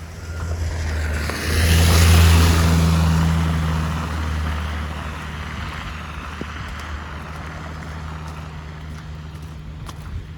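A motor vehicle driving past close by: a low engine drone with tyre hiss that swells to a peak about two seconds in, then slowly fades while the engine hum lingers.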